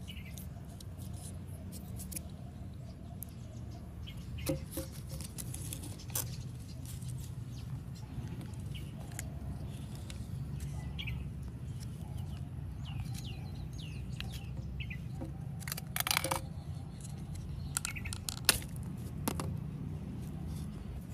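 Scattered clicks and knocks of metal and plastic angle-grinder parts being handled and set down, a few sharper ones near the middle and toward the end, over a steady low rumble, with birds chirping now and then.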